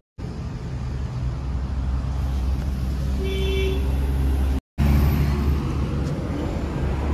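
Steady wind and road rumble from riding a Hero Xpulse 200 4V motorcycle, with a short horn toot a little past three seconds in. The sound drops out briefly about four and a half seconds in, then the same rumble carries on.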